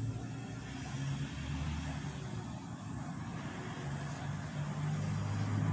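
An engine running with a low hum, growing louder near the end.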